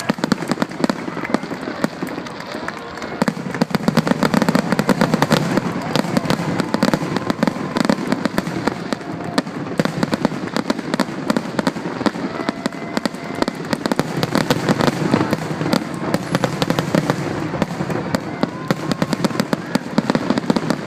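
Fireworks display: a dense, unbroken barrage of bangs and crackling as many shells burst in quick succession.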